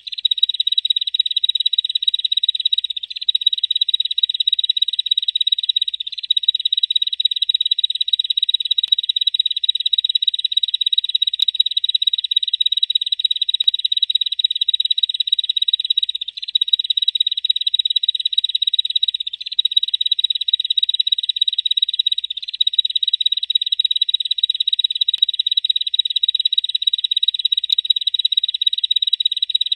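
Bar-winged prinia (ciblek) giving its 'ngebren' song: a continuous, high, very rapid buzzing trill, broken only by a few brief pauses.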